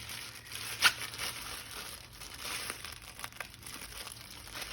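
Plastic packaging crinkling and rustling as it is handled and opened, with one sharp crackle about a second in.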